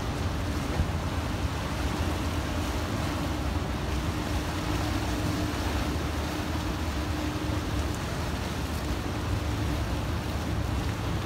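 Wind buffeting the microphone over choppy harbour water, a steady rushing noise heaviest in the low end. A faint steady hum runs underneath and stops about eight seconds in.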